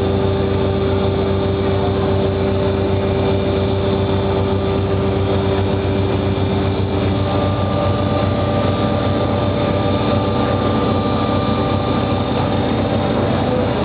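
CTcP plate setter running: a steady mechanical hum with several whining tones. About seven seconds in, one mid-pitched whine stops and a higher one takes over.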